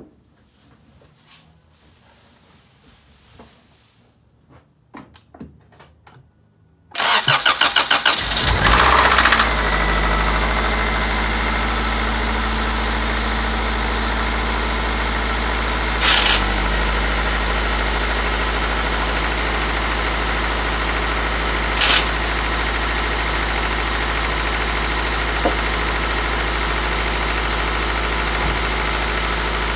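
Car engine cranked over by the starter about seven seconds in, catching and settling into a steady idle, briefly louder twice. It is an engine recently repaired for rod knock that still makes a noise, which the owner suspects is a bad oil pump, piston slap or bad valves.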